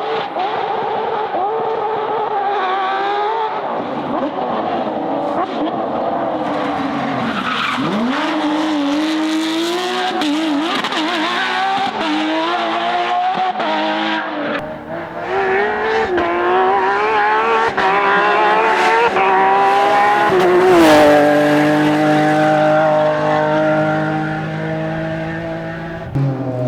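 Porsche rally car engines revving hard on a stage, the pitch climbing and dropping sharply again and again with the gear changes. Tyre skid noise runs alongside, and in the last few seconds the engine holds a steadier, slowly falling note.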